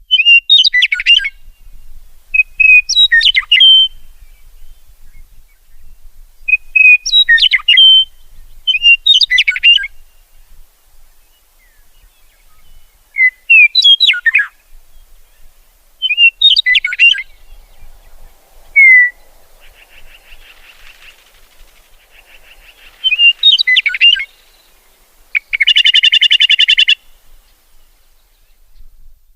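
Meadowlark singing: about eight short, fluty, warbled song phrases, one every two to four seconds. Midway there is a quieter buzzy chatter, and near the end a loud harsh rattle call lasts about a second and a half.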